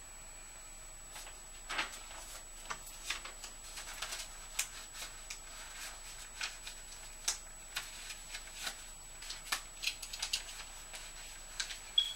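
Paper letters and cards rustling and crinkling as they are picked up and sorted by hand: an uneven run of crackles and taps. A faint high steady whine sits underneath, with one short high blip near the end.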